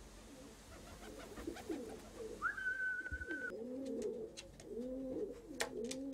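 Racing pigeons cooing over and over. A short, steady, high-pitched tone sounds about halfway through, and sharp clicks come in the second half.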